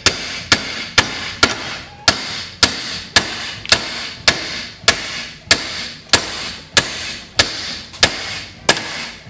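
Steady hammer blows on the steel hub of a 1958 Wheel Horse RJ58 steering wheel, about two metal strikes a second with a short ring after each, to knock loose a wheel held on its shaft by a stuck pin. The blows stop just before the end.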